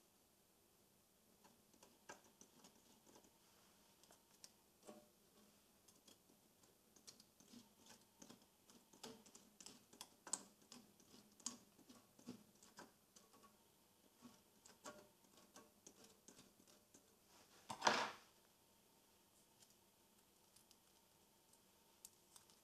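Faint, irregular small clicks and ticks of plastic SMD component tape being threaded by hand into a feeder on a TVM802 pick-and-place machine, with one louder, brief handling noise late on.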